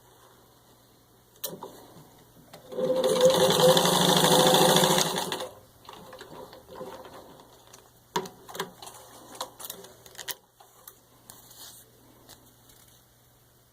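Singer 15-91 sewing machine running fast for about three seconds, stitching through four layers of vinyl upholstery, then stopping. Scattered light clicks and knocks follow.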